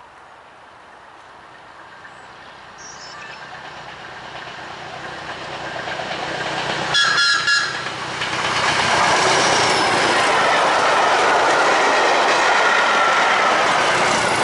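Green heritage multiple-unit train approaching and growing steadily louder, sounding two short blasts on its horn about seven seconds in. It then runs past at speed with loud rumble and clatter of wheels on the rails and a faint wheel squeal.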